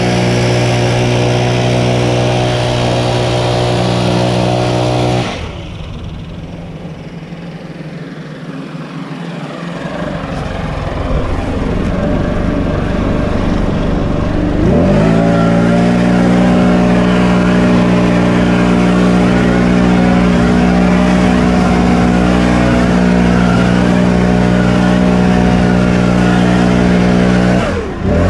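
Stihl BR 700 backpack blower's two-stroke engine running at full throttle, blowing snow off pavement. About five seconds in the engine note drops away to a quieter rush of air, then revs back up around the middle and holds steady until it falls off just before the end.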